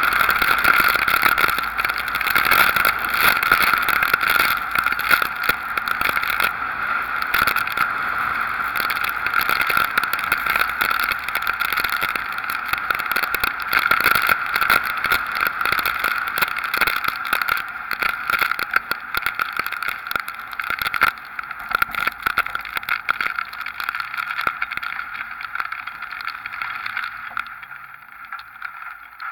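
Hurricane wind buffeting and rain pelting a camera mounted on the outside of a moving pickup truck: a loud, dense rushing crackle that rises and falls in gusts and eases off near the end.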